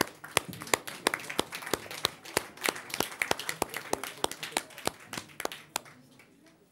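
Applause from a small group: distinct separate hand claps, several a second, that thin out and die away near the end.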